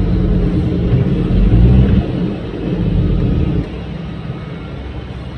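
Heavy vehicle engine running loud, dropping off suddenly about two seconds in, picking up briefly, then settling to a quieter steady rumble.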